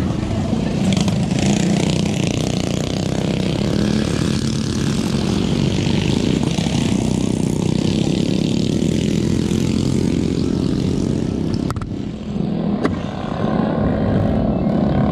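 Mini bike engines (small single-cylinder engines) running hard as a steady buzz, dipping briefly about twelve seconds in before picking up again.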